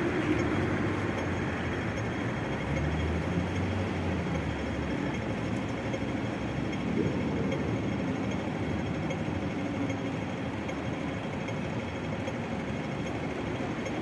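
Street traffic: vehicle engines running and passing, with a low engine hum in the first few seconds.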